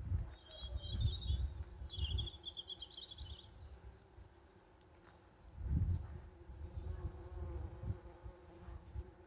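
Honeybees and other bees buzzing faintly around poppy flowers. A small bird trills twice in the first few seconds, and low rumbles on the microphone come and go, loudest at the start and again about six seconds in.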